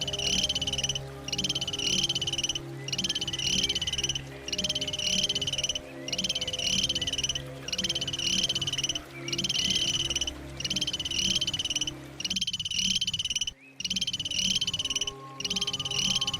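An animal's high, rapidly pulsing trill call, each about a second long, repeated steadily about once every 1.2 seconds, over a low steady hum that drops out briefly near the end.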